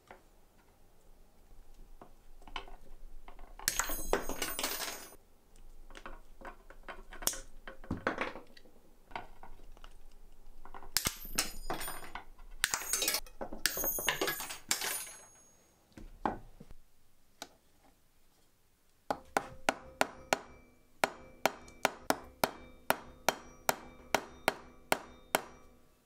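Irregular scraping and clicking of hand-tool work on the clamped knife handle. From about three-quarters of the way in, a hammer strikes metal on an anvil in a steady series, about two blows a second, each blow ringing briefly.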